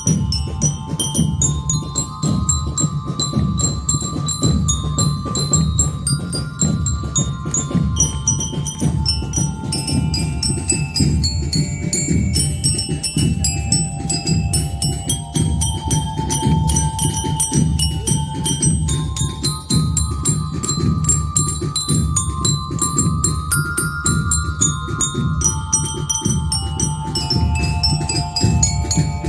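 Marching band music: bell lyres play a melody in clear, ringing notes over a steady, busy beat of drums.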